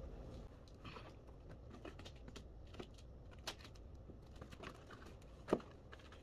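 A cardboard laptop box being handled and its tape seal pulled off: a scatter of small clicks, scrapes and rustles, with two sharper clicks about three and a half and five and a half seconds in.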